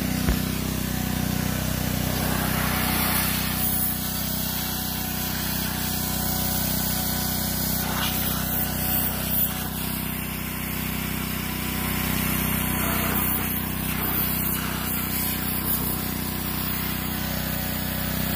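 Pressure washer spraying a steady jet of water through a bare Willys L134 cast-iron engine block, flushing dirt out of its oil passages, with the washer's motor humming steadily underneath the hiss of the spray.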